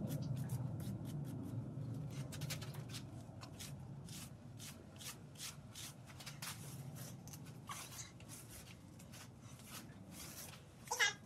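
Scissors trimming a horse's tail hair: a run of quick, irregular snips with rustling of hair. Near the end there is one short pitched squeak, the loudest sound.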